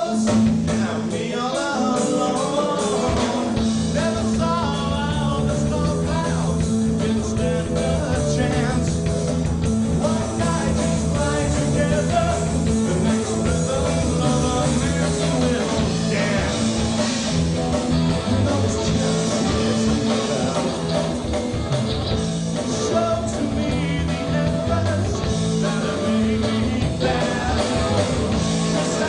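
A rock song played by a band, with a steady beat and a bass line under sustained guitar notes; a wavering voice or lead line comes through in the first few seconds.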